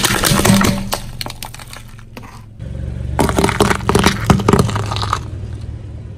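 A car tyre rolling over and crushing brittle objects: dense crunching and cracking over the car's low engine hum, in two passes, the first dying away about a second in and the second starting with a sudden jump about two and a half seconds in.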